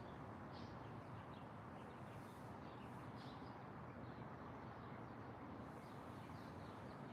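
Faint birdsong: scattered short, high chirps from small birds over a steady low outdoor hiss, with a couple of soft rushing swells.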